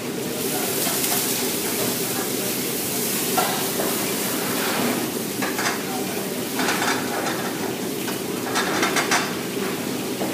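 Food sizzling in a hot metal pan on a gas range, with a metal ladle stirring and scraping in the pan and clattering against it several times.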